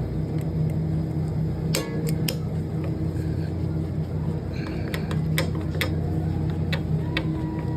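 Steady low machine hum, with scattered sharp metallic clicks and taps as a hand-made grabbing tool works a broken torsion rod out of a Hussmann Impact freezer door.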